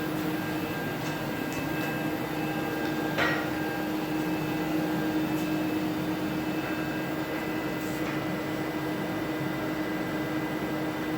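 Steady machine hum with a constant low tone. There is a brief higher scrape about three seconds in.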